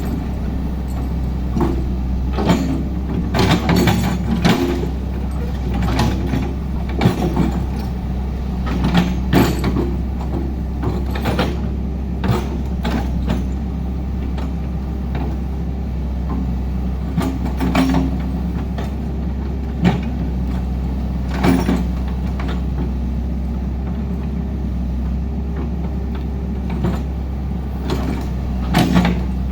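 Heavy diesel machinery running steadily, with frequent irregular metallic clanks and knocks over the engine drone.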